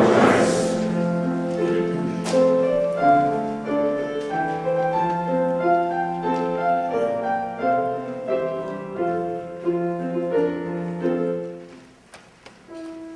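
A keyboard instrument playing slow held chords, the notes changing about every half second; the music softens and thins near the end before a new phrase begins.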